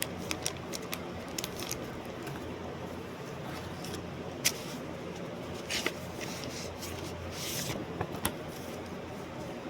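Scattered sharp clicks and brief rustles over a steady hiss and low hum, the loudest click about four and a half seconds in.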